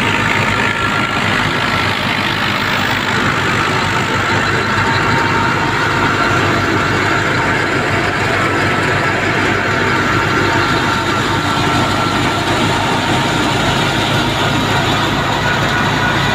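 A PTO-driven wheat thresher running at working speed while threshing, powered through its shaft by a 1978 Fiat 480 diesel tractor. It makes a loud, steady mechanical noise with a faint steady whine, and the tractor engine pulses low under load beneath it.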